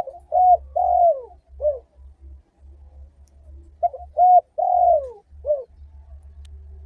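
Spotted dove (tekukur) cooing: two phrases of four notes, a few seconds apart, each with a longer, falling third note.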